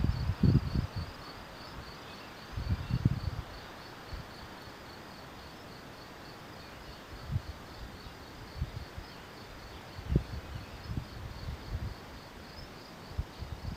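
A cricket chirping steadily, a regular run of short high chirps several times a second. Low rumbling bumps on the microphone come and go, loudest near the start and about three seconds in.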